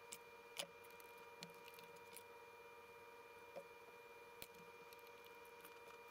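Near silence: a steady faint hum, with a few soft clicks and taps as wires and small connector parts are handled on a workbench.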